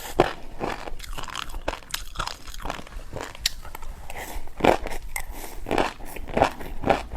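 A person chewing a crunchy snack close to the microphone: a run of sharp, irregular crunches and bites, a few a second, with louder ones about halfway through and near the end.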